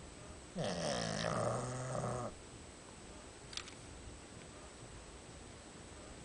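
A sleeping pet giving one long snore, a little over a second and a half, that starts about half a second in, dips in pitch and then holds steady. A faint click follows about halfway through.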